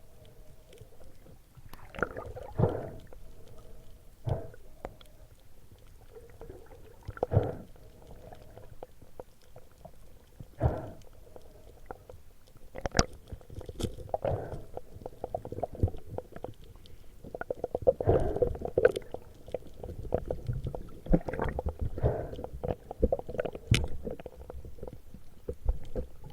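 Muffled underwater gurgling and bubbling with irregular knocks, as picked up by a camera underwater, busier in the second half, over a faint steady hum.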